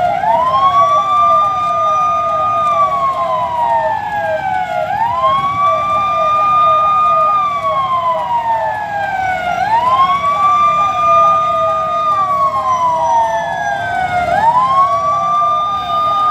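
Sirens sounding together. One wails in slow cycles: it rises, holds high, then falls, about every five seconds. A second siren yelps beneath it in quick, repeated upward sweeps.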